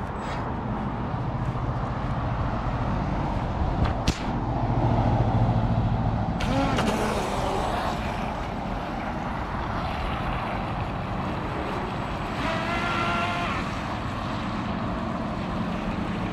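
Battery-electric RC tunnel-hull boat driven away across a pond: a sharp knock about four seconds in, then from about six seconds a steady motor whine with a hiss of spray as it speeds off.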